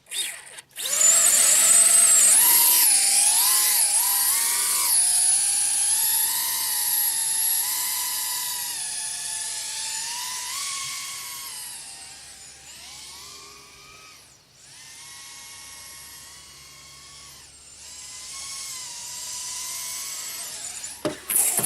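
Blade Torrent 110 micro FPV quadcopter flying, its brushless motors and propellers whining in a high pitch that rises and falls with the throttle. Loudest about a second in, it grows fainter, drops out briefly around the middle, then builds again before stopping near the end.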